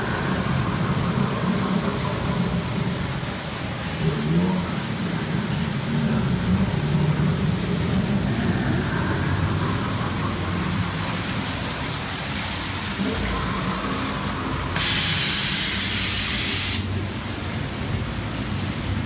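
A steady low hum and murmur, with a loud hiss lasting about two seconds near the end that starts and stops abruptly.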